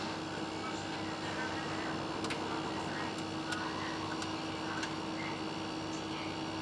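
Two Centurion Scientific C2 Series benchtop centrifuges running at speed, giving a steady hum with one constant tone. A few light ticks are heard in the middle.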